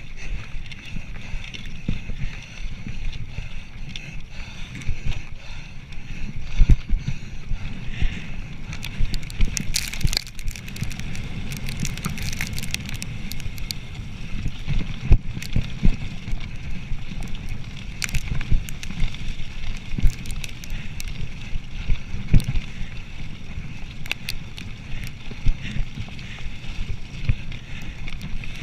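Mountain bike ridden fast over a rough forest trail, heard from the handlebars: a steady rumble of tyres on the ground with frequent sharp rattles and knocks as the bike jolts over bumps.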